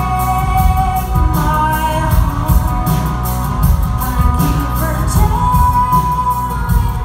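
Live band music: a woman sings, holding a long note near the end, over keyboards, electric guitar and a steady beat.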